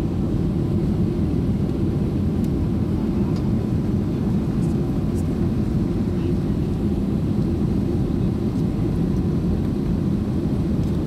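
Steady, deep rush of cabin noise inside a Boeing 767-300ER airliner on final approach, from airflow and engines, with a few faint ticks.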